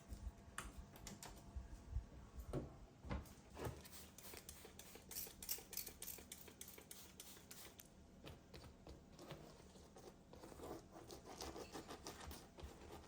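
Quiet, irregular small clicks, taps and scratchy scrapes of objects being handled by hand, busiest in the middle.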